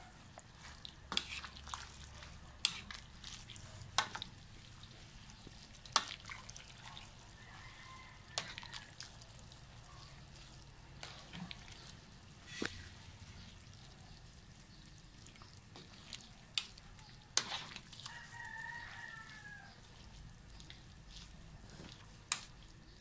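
A wooden spatula and a metal utensil clink and scrape against a metal wok as noodles in broth are tossed, giving intermittent sharp clicks and soft wet stirring. A rooster crows faintly in the distance, about 8 s in and again near the end.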